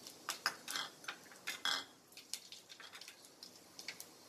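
Fenugreek and fennel seeds spluttering in hot oil in a stainless-steel pan: irregular small crackles and pops, a few louder ones in the first two seconds. The oil is hot enough for tempering.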